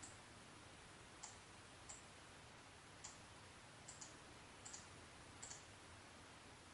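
Near silence broken by about ten faint, sharp clicks at irregular intervals, some coming in quick pairs.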